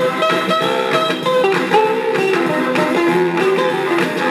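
A 1960s rock-and-roll 45 rpm record with guitar playing through the built-in amplifier and speaker of a 1953 RCA 45EY2 record player.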